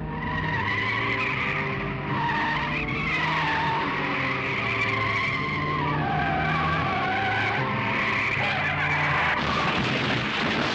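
Car tyres screeching in a long, wavering squeal as a car swerves and skids, over the sound of its engine.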